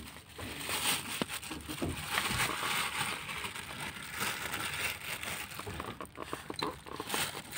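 Crinkling and rustling of a clear plastic bag of dry cat food as it is handled, with scattered small clicks and crackles.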